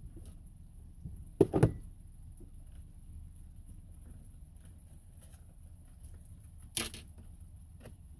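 A few sharp knocks and clunks of cooking things being handled: two close together about a second and a half in, another near the end, over a low steady rumble.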